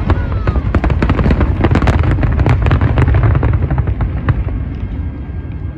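Fireworks going off: a dense crackle of rapid sharp pops over a deep rumble, thinning out after about four seconds.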